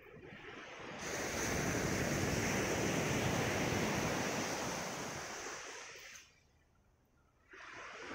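Sea waves breaking and washing up a gravel beach in a long surging hiss that swells, peaks and fades, then drops away abruptly about six seconds in before the next surge begins near the end.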